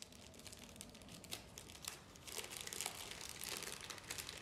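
Small clear plastic accessory bag crinkling and rustling as it is handled in the hands, getting busier after about two seconds.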